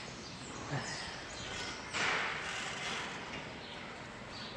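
Faint background noise inside a cow barn, with a brief louder hissing rustle about two seconds in.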